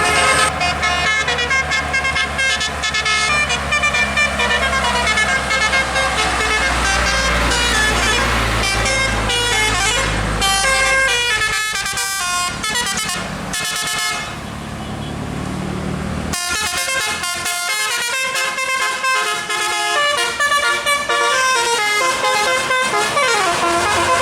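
Bus 'telolet' multi-tone air horns playing quick melodies of stepping notes, over a steady low bus-engine drone. The drone drops out abruptly about two-thirds through while the horn tunes go on.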